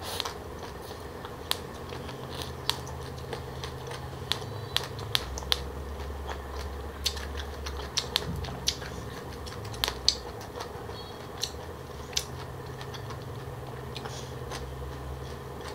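Close-up chewing of crunchy green papaya and pig ear salad: irregular sharp crunches, about one a second, over a faint steady hum.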